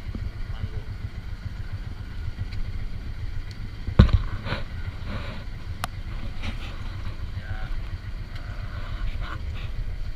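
Small fishing boat's engine running steadily with a low rumble, and one sharp knock about four seconds in.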